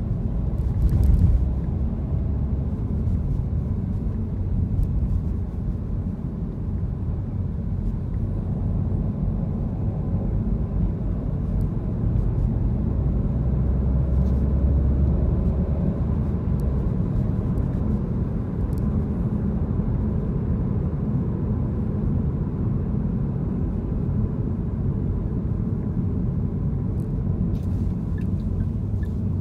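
Steady low rumble of road and engine noise inside a moving car's cabin, with a few faint clicks about a second in and near the end.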